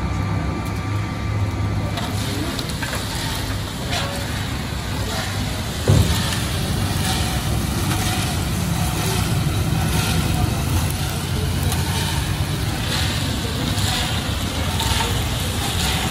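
Engine-driven peanut roasting machine running: a steady low engine drone with the rattle of peanuts tumbling in the rotating roasting drum, pulsing about once a second later on. One short loud knock about six seconds in.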